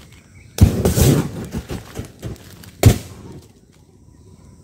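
Firecrackers going off in a fire: a loud bang followed by about a second of rapid crackling, a second sharp bang near three seconds in, and another bang at the very end.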